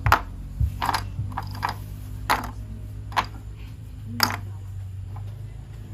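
Plastic toy train pieces clicking and clacking as they are handled, in separate sharp clicks at uneven intervals, over a low steady hum.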